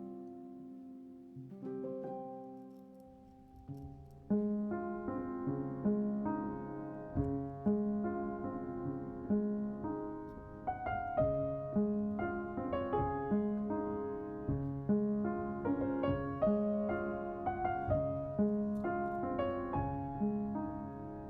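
Background piano music: sparse notes at first, then from about four seconds in a fuller part with a bass line and evenly paced notes.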